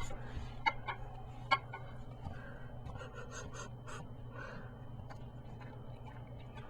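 A dog licking and eating cake off a plate: wet lapping and smacking with a few sharp clicks in the first two seconds, over a steady low hum.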